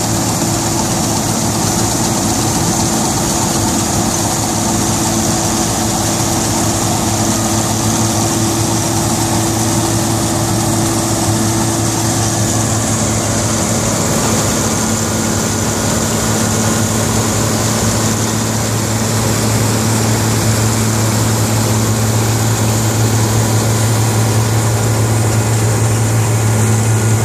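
Claas Mercator 60 combine harvester working through standing wheat: its diesel engine and threshing machinery make a loud, steady drone with a low hum. It gets a little louder about two-thirds of the way through.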